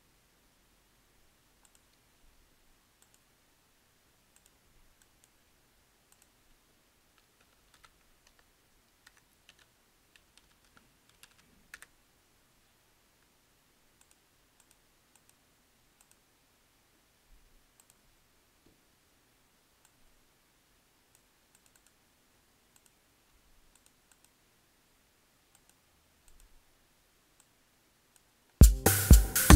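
Faint scattered clicks of a computer mouse and keyboard over near silence. About a second before the end, an AfroTech house beat programmed in FL Studio starts playing loudly, with a steady electronic kick drum.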